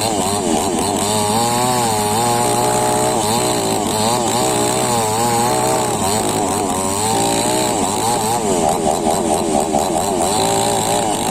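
Chainsaw running at speed, its engine pitch rising and falling over and over, with a fast wavering about nine seconds in.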